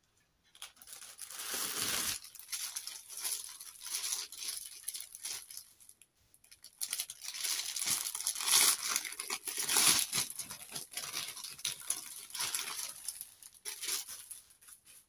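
A thin clear plastic packaging bag being crinkled and torn open by hand, in a run of rustling bursts with a short lull about six seconds in.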